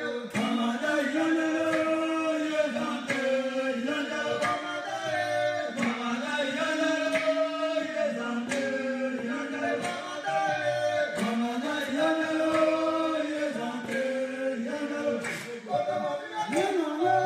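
Recorded military commando chant: a group of men singing together in long, held notes that slide between pitches.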